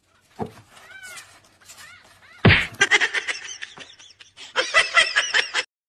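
Short animal calls in quick succession, with a sharp thump about two and a half seconds in.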